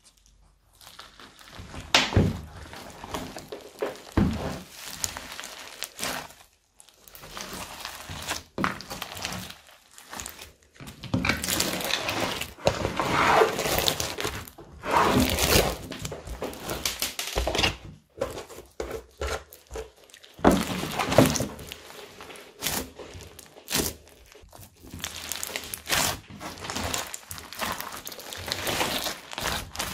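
Hands squishing, stretching and pressing a thick mixed slime packed with foam beads: irregular sticky squelches and crackling, with sharp pops and clicks now and then as the slime is worked.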